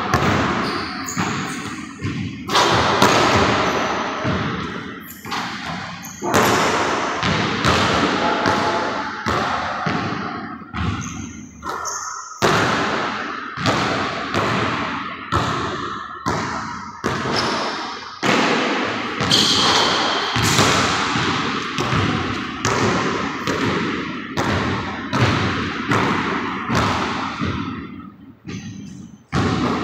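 Basketball bouncing and being dribbled on a hardwood gym floor: a run of sharp thuds at irregular spacing, each ringing out in the echo of the large hall.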